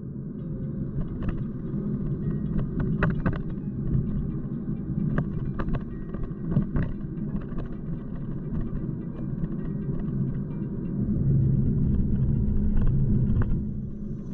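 Car interior during driving: a steady low rumble of engine and tyres on a rough road, with scattered knocks and rattles from bumps in the surface. The rumble grows louder for a couple of seconds near the end.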